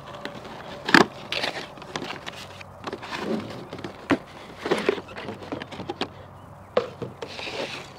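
Cardboard box being opened by hand: a sharp snap about a second in as the lid's tuck flap is pulled free, then several rustles and scrapes of cardboard as the lid folds back and a plastic packing tray slides out.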